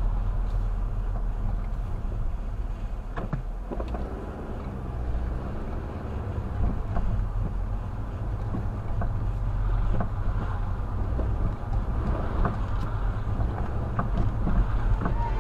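Car driving slowly along a city street, heard from inside the cabin: a steady low rumble of engine and tyres, with a few light knocks and rattles scattered through it.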